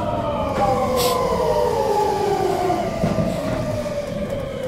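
Electric train braking to a stop: the motor whine slides steadily down in pitch over a low running rumble, easing off near the end as the train comes to rest.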